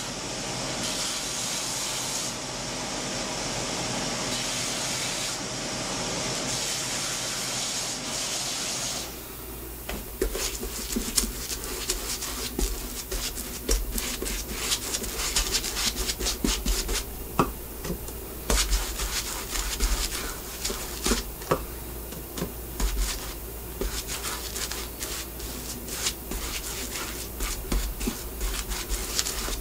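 A steady hiss that steps slightly in level for about nine seconds, then stops. After it a low hum comes in under a long run of sharp taps, knocks and rubbing as the leather soles are worked onto the shoes.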